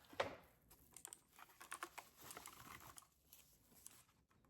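Faint clicks and light rustling of a mechanical keyboard being handled and taken out of its packaging, with one sharper click about a quarter second in.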